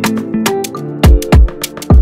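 Background music: deep kick drum thumps and crisp high percussion over held melodic notes.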